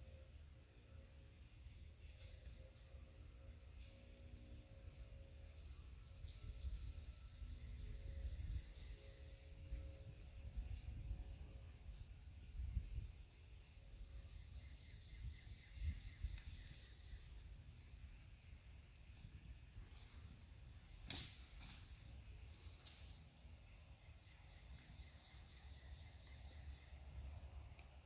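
Faint, steady high-pitched chorus of insects, with low rumbling noise under it and one sharp click about three-quarters of the way through.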